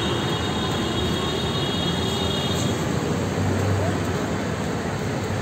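Steady roadside traffic noise, with a low engine hum joining a little past halfway.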